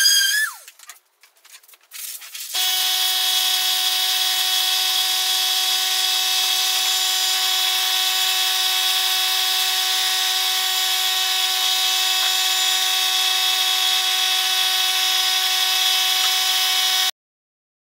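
An electric power tool runs with a steady high-pitched whine from about two and a half seconds in, after a brief falling tone and a few clicks. It cuts off suddenly near the end.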